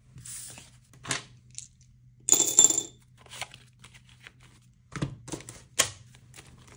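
Hands handling paper game cards and dollar bills on a wooden tabletop: light rustling and taps, with one brief, louder clatter about two and a half seconds in and a few sharp taps near the end.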